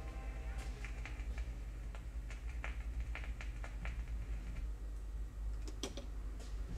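Turntable stylus riding the run-out groove of a spinning 45 rpm single after the song has ended: a low steady hum with a run of light clicks. Near the end comes a sharper click as the tonearm is lifted off the record.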